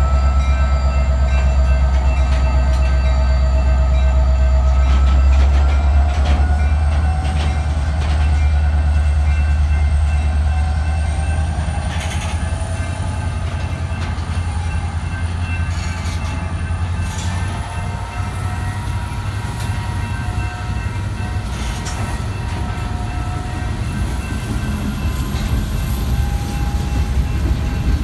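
Norfolk Southern SD60 diesel locomotive's engine rumbling under power as it pulls a string of covered hopper cars, with a whine that slowly rises in pitch as the train gathers speed. The engine rumble fades a little before halfway as the locomotive draws away, leaving the cars rolling past with a few sharp clanks.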